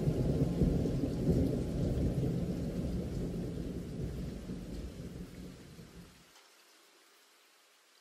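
Rain with a low rolling rumble of thunder, fading out. The thunder's rumble cuts off abruptly about six seconds in, leaving a faint hiss of rain.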